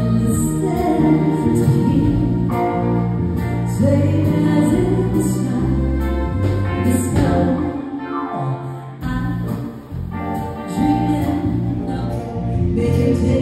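A live band playing a song, with keyboard, drums and a singer's voice. The playing eases off briefly past the middle and then picks up again.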